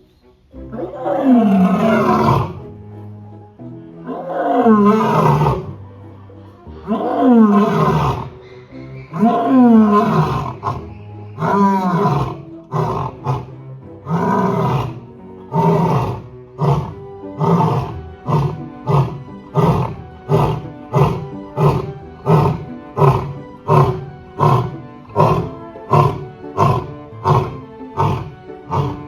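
Male lion roaring a full bout: several long roars, each falling in pitch, followed by a run of short grunting calls at about one a second.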